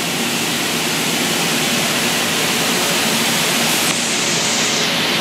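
Steady rushing air noise from an indoor shooting range's ventilation, with no shots fired. The hiss shifts slightly in its upper pitch about four seconds in.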